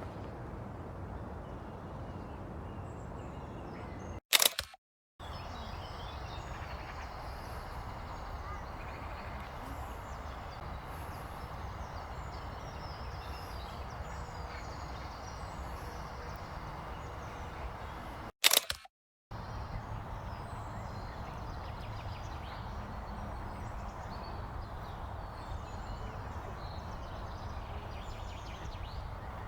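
Steady outdoor ambient noise with faint bird chirps. It is broken twice, about 4 seconds in and about 18 seconds in, by a sharp loud click followed by half a second of dead silence, like a jump between recorded clips.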